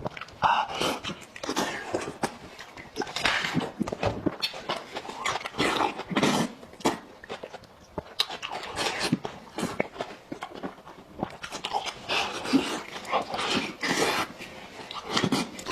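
Close-miked eating: a man chewing and biting into boiled chicken, with wet smacking and mouth noises coming at an uneven pace.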